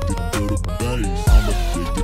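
Electronic music with a steady beat: a deep bass hit a little past the middle, quick repeated ticks and synth notes that slide down in pitch.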